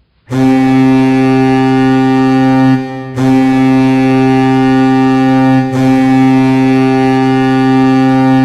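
Colorado Avalanche goal horn: a deep, steady hockey goal horn sounding loudly in long blasts, with short breaks about three seconds in and again just under six seconds in.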